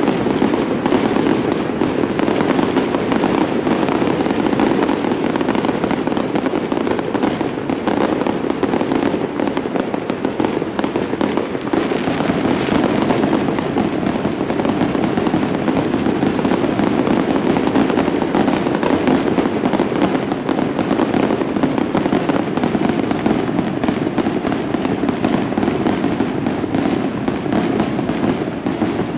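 Aerial fireworks bursting overhead in a dense, continuous barrage: rapid overlapping bangs and crackling with no pauses.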